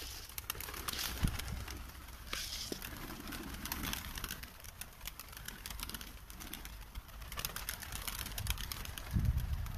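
A flock of Uzbek playing pigeons fluttering down to feed, with wings flapping and low cooing, over many small sharp ticks. A low rumble near the end.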